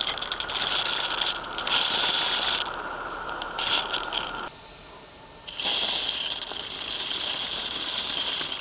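Roundhouse Katie live-steam garden-railway locomotive running through snow: steam hiss with mechanical rattling. It breaks off for about a second near the middle, then resumes.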